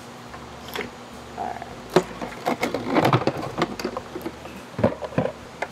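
Plastic clicks and knocks as a canister filter's lid is unclipped and lifted off the water-filled canister, with water dripping and splashing as it comes away. The busiest handling noise falls in the middle.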